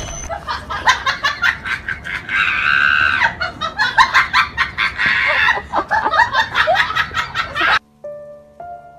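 High-pitched vocalising in quick, choppy bursts that cut off sharply near the end. Soft piano notes begin just after.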